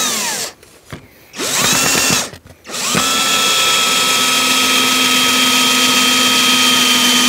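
Electric drill-driver driving screws into pallet boards: a run ends just after the start, a short burst follows about a second and a half in, then a long steady run from about three seconds in.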